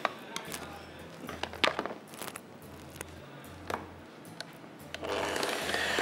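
A spatula tapping and scraping against a mixing bowl while whipped cream is folded into a cheesecake mixture: a few sharp knocks, the loudest about a second and a half in, over a low hum that comes and goes. A broad rushing noise rises near the end.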